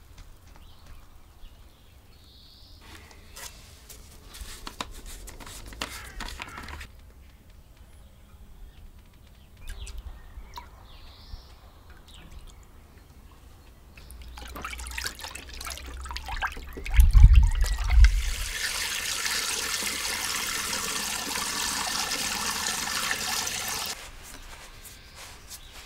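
Liquid poured from a bucket into a plastic pump sprayer tank: after a heavy thump, a steady pour runs for about six seconds and stops abruptly near the end. Faint bird chirps are heard earlier.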